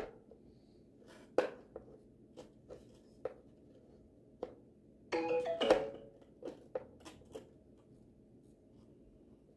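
Scattered light knocks and clicks of a Halloween scarecrow prop's head being handled and fitted onto its frame, with a brief pitched, tone-like sound lasting about a second a little past the middle.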